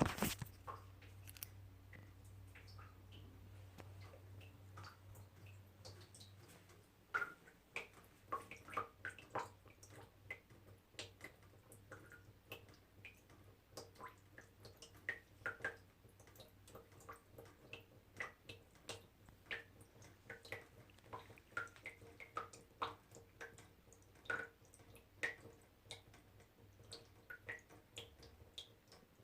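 Small water drops dripping irregularly, several a second, each a short plink, more frequent and louder from about seven seconds in. A low steady hum runs underneath for the first several seconds.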